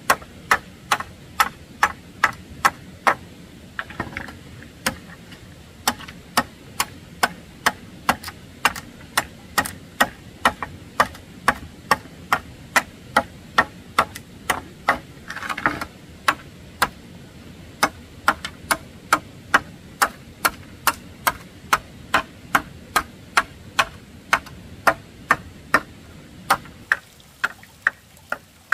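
Machete chopping into a half-split bamboo culm in quick, even strokes, about two sharp knocks a second, as it hacks along the inside of the split bamboo.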